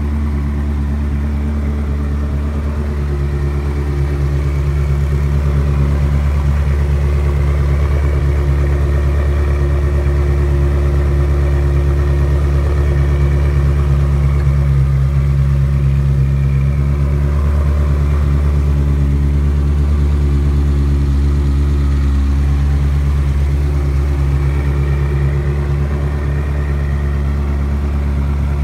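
Ferrari 360 Modena's 3.6-litre V8 idling steadily at the exhaust, with no revving.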